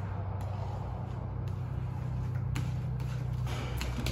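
Steady low hum, with light crackles and taps from about two and a half seconds in as window tint film is handled and pressed flat against the glass.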